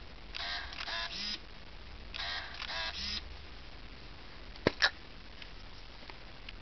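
Contax T2 compact camera's built-in motor whirring twice, about a second each. A little later come two sharp clicks close together as the film back door latch is released and the door springs open.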